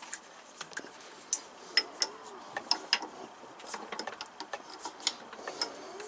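Irregular sharp metallic clicks and ticks, a few a second, as the wood lathe's chuck is checked and snugged tight on the workpiece.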